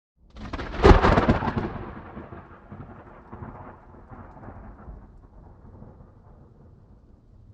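A thunderclap: after a brief silence a sudden sharp crack about a second in, followed by a long rumble that fades away over the next several seconds.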